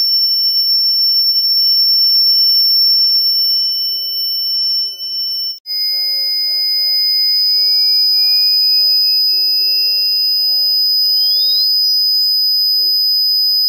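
Solar-powered electronic rat repeller's speakers sounding several steady, piercing high-pitched tones at once. About halfway through the pitches switch: one tone starts lower and rises slowly, then sweeps quickly up to a very high pitch near the end as a speaker's frequency knob is turned, while another tone glides down.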